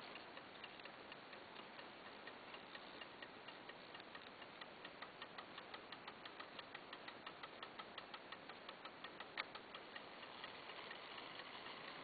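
Old Junghans chiming clock movement ticking, a fast, even run of light ticks that grows louder through the middle, with one sharper click near the end before the ticking fades.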